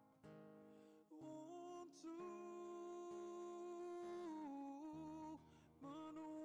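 Slow background music: a melody of long held notes that glide from one pitch to the next, over a low accompaniment, growing louder about two seconds in.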